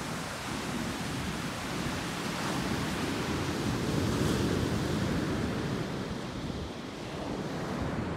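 Big North Sea waves breaking and washing up the sand beach: a steady rushing surf that swells about halfway through and eases a little after, with wind buffeting the microphone.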